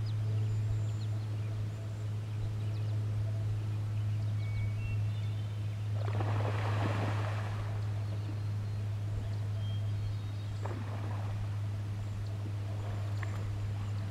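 A steady low hum runs throughout. About six seconds in there is a swishing splash of water lasting a second or two, and two fainter splashes follow near the end, as a bull moose wades and feeds on water plants. Faint high bird chirps come now and then.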